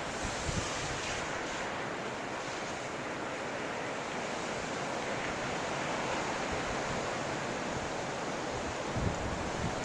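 Blizzard wind blowing steadily as a continuous rushing hiss, with gusts buffeting the microphone about half a second in and again near the end.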